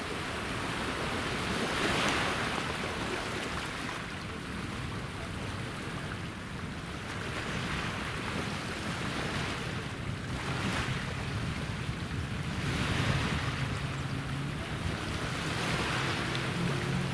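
Small sea waves washing against the shore, swelling every few seconds, with wind on the microphone. A low steady hum comes in during the second half.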